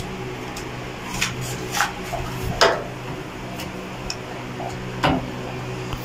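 Scattered clicks and light knocks of hands pushing wire connectors onto the terminals of a washing machine's new motor capacitor and handling its plastic parts, over a steady low hum.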